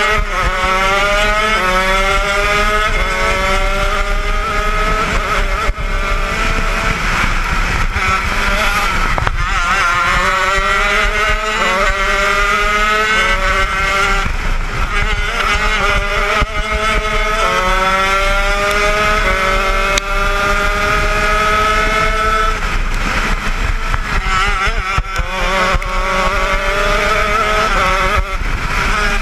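80cc two-stroke shifter kart engine heard onboard, revving up through the gears: the pitch climbs, drops at each quick upshift and climbs again, three runs over, with lower, uneven running between them as the throttle comes off.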